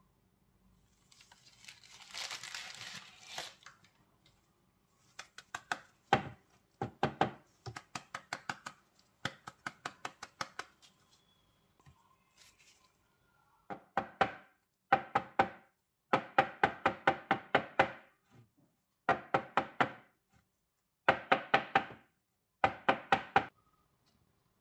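Plastic piping bag of thick salted caramel squeezed over nut-filled tart shells, giving bursts of quick sticky clicks and crackles about a second long, with a brief rustle near the start.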